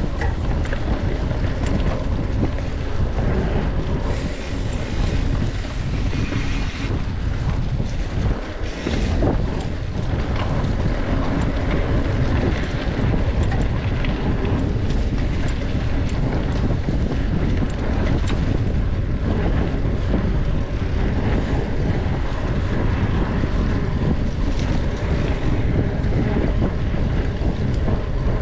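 Steady rush of wind buffeting the microphone of a mountain bike moving along a trail, with scattered small clicks and rattles.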